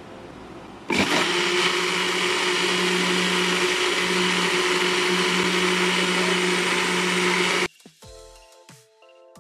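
Electric blender running at a steady speed, blending strawberries into juice. It switches on about a second in and cuts off abruptly near the end.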